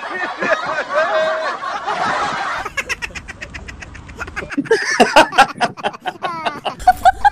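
Men laughing, several separate laughs joined one after another, with rapid ha-ha pulses in the second half.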